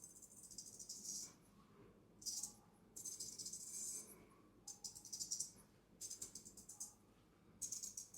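Straight razors worked in the rhythmic 'jumping three blades' style of traditional Chinese shaving. About six separate bursts of rapid, high, crisp ticking and scraping, each up to about a second long.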